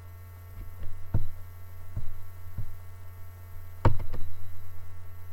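Steady low electrical hum with faint high whining tones over it, broken by about seven irregular knocks or taps, the loudest about four seconds in.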